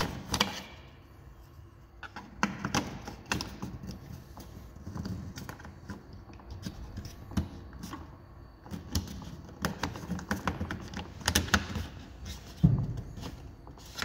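Hard plastic parts of a BMW i3 charging-socket and lid frame assembly being handled and pushed into place. They make scattered clicks and knocks, the loudest a thump near the end.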